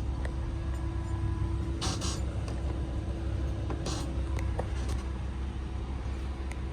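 Steady low machinery hum with a constant mid-pitched tone, from a tower crane heard inside the operator's cab during a pick. Two brief hissy bursts come about two and four seconds in.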